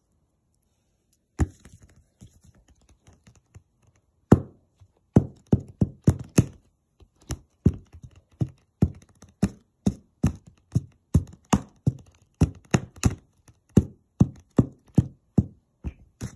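Sharp thuds of a metal spoon striking a slime ball on a paper plate, about two a second, after a single knock about a second and a half in.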